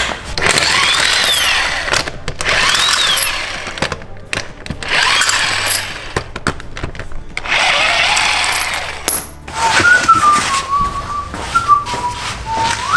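Impact wrench loosening a car wheel's lug bolts in four runs of about two seconds each, the first two with a whine rising and falling as the motor spins up and down. From about ten seconds in, a person whistles a tune.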